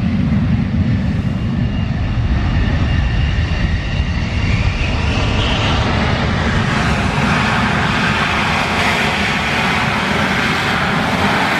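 F-16 fighter jet taking off with its afterburner lit: a loud, steady jet roar.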